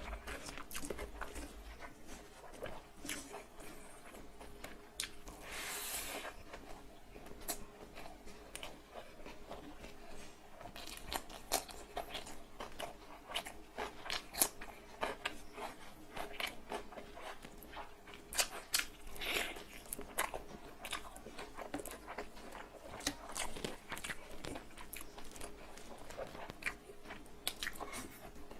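Close-up chewing and mouth sounds of a person eating big mouthfuls of egg fried rice with chicken curry: a steady run of short sharp clicks and smacks, with two longer noisy stretches.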